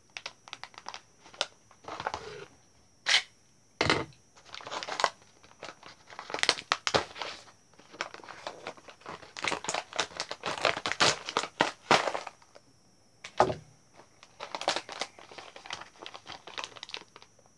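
Crinkling and crackling of a plastic snack bag being worked open by hand, in irregular bursts with short pauses and a few sharper snaps.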